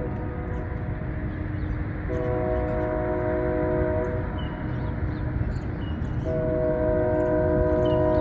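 Distant train horn sounding a multi-note chord in two blasts, one about two seconds long and a longer one starting near the end, over a steady low rumble.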